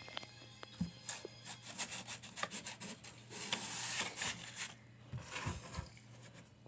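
Close, scratchy rustling and rubbing handling noise with irregular scrapes and clicks, loudest about three and a half to four and a half seconds in, then quieter.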